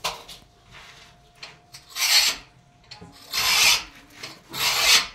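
Rough rasping scrapes in a slow rhythm, about one every second and a quarter. Three loud strokes come in the second half, after fainter ones.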